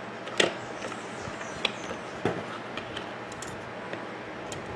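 Screwdriver and small metal parts clicking against an Oster blender motor's brush holder as the brushes are worked on, three sharp clicks and a few fainter ticks over a steady hiss.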